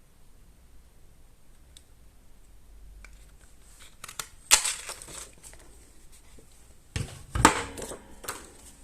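Cardstock pieces and craft tools handled on a work table: quiet at first, then two louder bursts of paper rustling and sharp knocks, about halfway through and again near the end.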